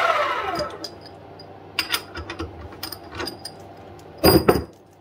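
Small benchtop milling machine's spindle motor winding down with a falling whine after being switched off, then scattered clicks and knocks as the milled track is freed from the machine vise, with a louder clatter about four seconds in as it is lifted out.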